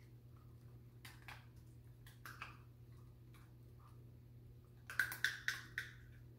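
Light clicks and taps of a spoon against a dish while spooning vegan egg into the jalapeno mayo: a few faint ones early, then a quick run of five or six sharper taps near the end.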